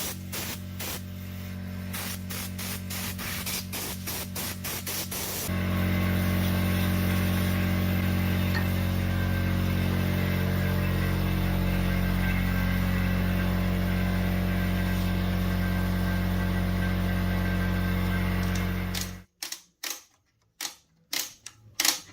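Electric air blower motor running steady and loud as it blows dust out of the receiver's chassis. It starts abruptly about five seconds in, after a run of quick clicks, and cuts off suddenly near the end, followed by a few clicks.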